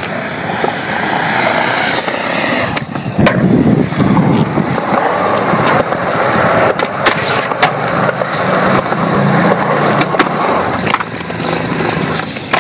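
Skateboard wheels rolling over smooth concrete in a steady, loud rumble, broken several times by sharp clacks of the board striking the ground.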